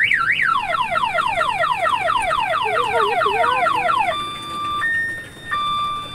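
Electronic siren sound effects from a kiddie car ride: a warbling wail, then rapid falling sweeps about five a second, changing a little after four seconds in to a two-tone hi-lo siren.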